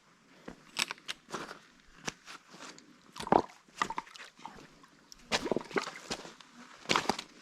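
Irregular crunching footsteps of a hiker on a forest trail, with a few louder steps or knocks about three seconds in and near the end.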